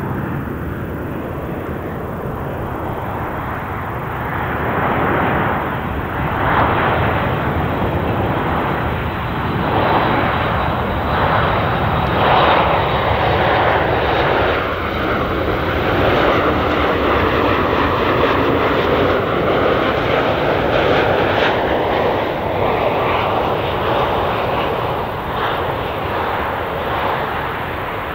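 Boeing 737 MAX 8 BBJ's twin CFM LEAP-1B turbofan engines on landing approach: a steady jet rumble with a whine. It grows louder about five seconds in, stays loud through the middle as the jet passes close by, and eases a little near the end as it heads away.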